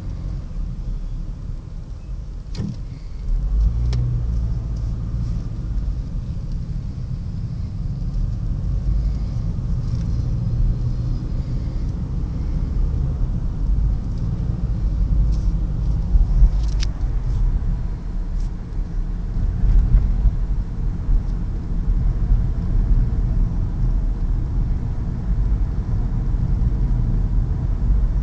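Car driving, heard as a steady low rumble of engine and road noise, with a few faint knocks.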